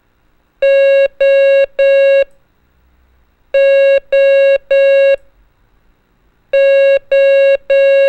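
Morse code practice tone sending the letter O (dah-dah-dah) three times: three groups of three long, steady, identical beeps, with a pause of about a second between groups.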